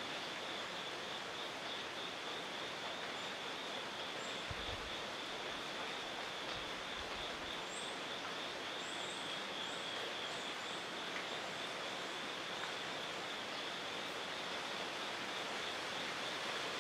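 Outdoor ambience: an even background hiss under a steady high insect trill. A run of faint, very high, short bird chirps comes about eight to eleven seconds in, and two soft low bumps sound around five and seven seconds in.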